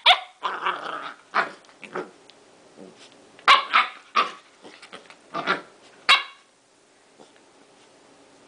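Corgi puppy barking in a string of short, loud barks, excited play after a bath, with one longer bark-growl near the start. The barks stop about six seconds in.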